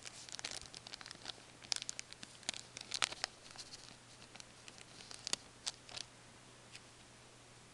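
Wrapper of a trading-card pack crinkling and tearing as it is opened, in a string of small crackles that thin out about six seconds in.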